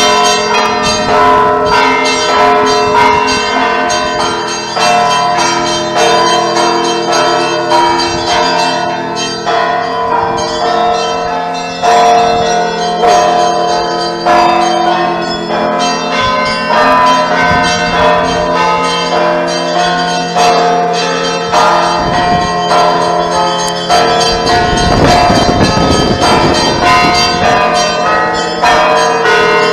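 Church bells ringing: several bells of different pitches struck in a quick, dense pattern, the strikes layered over the long lingering ring of the larger bells.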